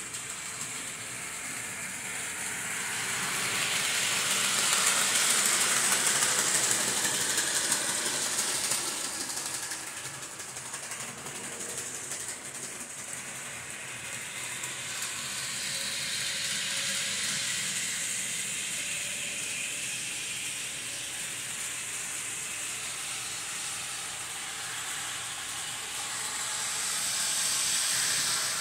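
Model trains running on the layout: a steady hissing, rushing noise of wheels and motors on the track. It swells louder about four to nine seconds in, and again near the end, as a train passes close by.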